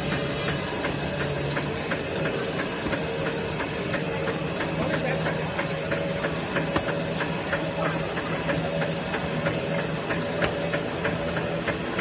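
Clay brick-making machine running: a steady mechanical hum from its motor and gear drive with a hiss, and a regular clatter of about two clicks a second.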